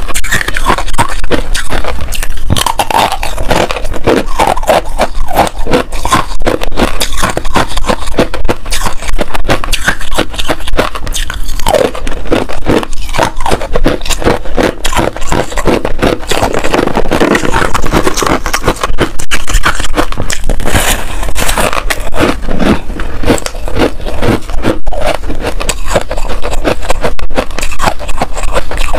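Close-miked crunching and chewing of hard, frost-covered freezer ice: a dense, continuous run of crisp crunches as the ice is bitten and ground between the teeth.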